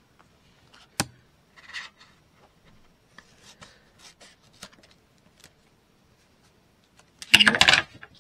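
Paper card and craft foam being handled by hand: a sharp click about a second in, scattered soft rustles and scrapes, then a louder rustling scrape near the end.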